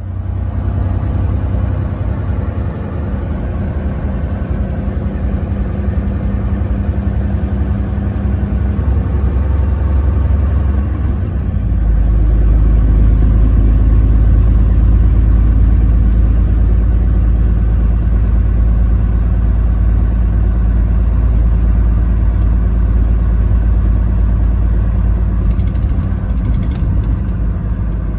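Truck driving on the highway: a steady engine and road rumble. The deep low rumble grows louder about twelve seconds in and holds.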